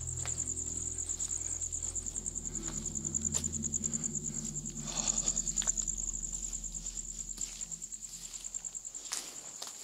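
Night insects trilling in a steady, high, fast-pulsing chorus, over a low hum that fades away near the end, with a few faint clicks.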